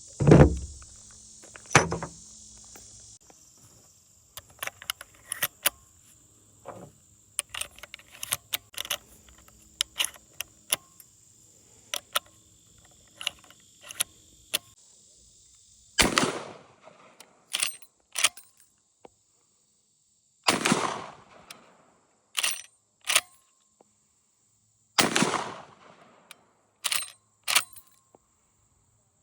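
Henry lever-action airsoft rifle being fired five times: two shots near the start and three more later, each with a short decaying tail. Between the shots come many small metallic clicks and rattles of the action being worked and loaded.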